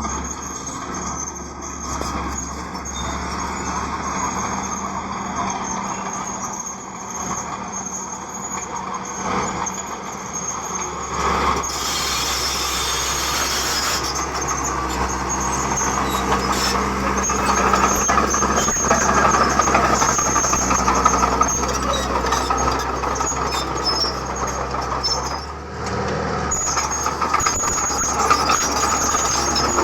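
Heavy diesel construction machinery working, its engine running steadily under a loud, high metallic squealing.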